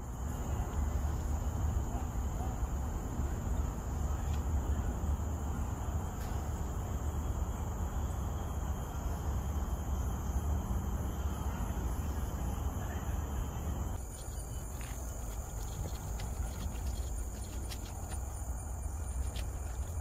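Forest insects droning steadily in two even, high-pitched tones, over a low, steady rumble that eases slightly about two-thirds of the way through.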